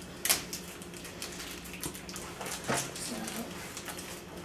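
Plastic packaging crinkling and rustling as it is pulled open by hand, with sharper rustles just after the start and again about two and a half seconds in.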